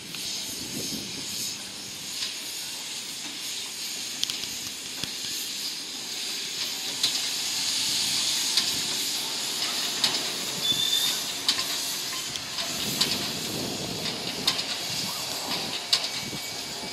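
Victorian Railways K-class steam locomotive K163 hissing steam as it draws slowly into the platform. The hiss swells towards the middle, with scattered light clicks.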